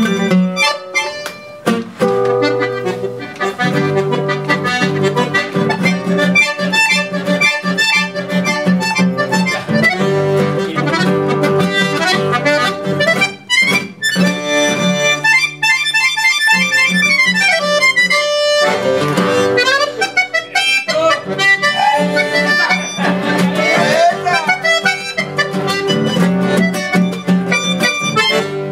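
Button accordion and nylon-string classical guitar playing an instrumental chamamé passage together: the accordion carries the melody with some fast runs over the guitar's strummed chords and bass.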